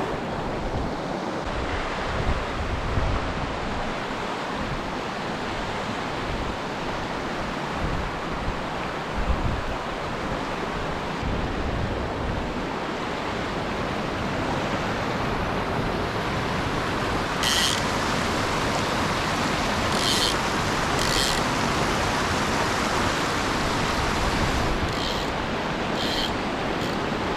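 Mountain torrent rushing steadily, with low gusts of wind on the microphone now and then and a few short, high hisses in the second half.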